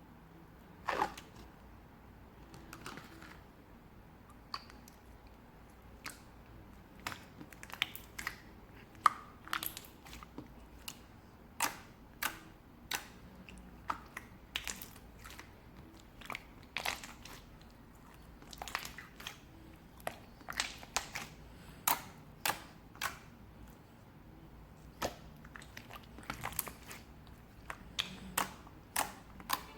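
Irregular sharp crunching clicks, close to the microphone, coming singly or in quick clusters, some much louder than others.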